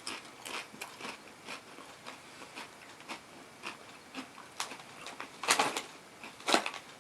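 A person crunching and chewing potato chips: irregular crisp crunches throughout, with two louder crunches near the end.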